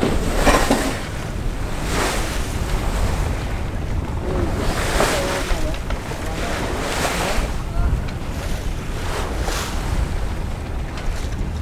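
Sailing yacht's hull pushing through choppy water under sail: repeated splashes of the bow wave against the hull, a couple of seconds apart, over steady wind buffeting the microphone.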